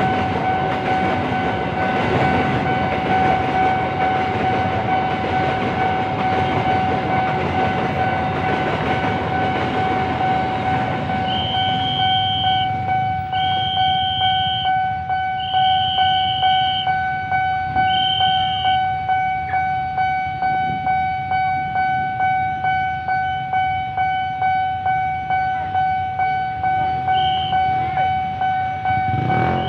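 A freight train of empty flatcars rolls across the level crossing for the first ten seconds or so, under the crossing's alarm bell, which keeps ringing in a steady pulsing tone after the train has cleared. Several short high-pitched toots sound in the middle and again near the end.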